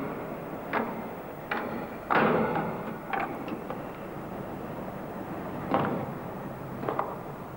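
About half a dozen sharp clacks and clunks of rifles and gear being handled, spaced irregularly, the loudest about two seconds in.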